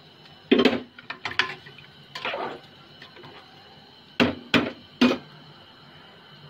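Metal spoon knocking and clinking against the side of a metal cooking pot while stirring rice and moong dal in water: a few sharp knocks, a longer scrape partway through, then three quick knocks a little past the middle.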